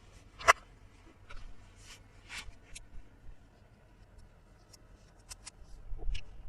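Light clicks and taps of small plastic toy pieces being handled and set down, irregular and scattered, with one sharp click about half a second in.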